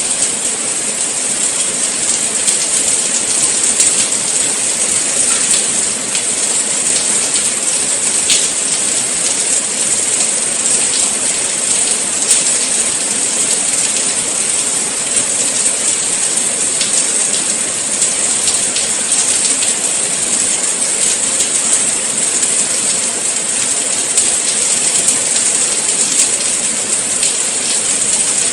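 Steady rain falling: a dense, even hiss full of fine drop ticks.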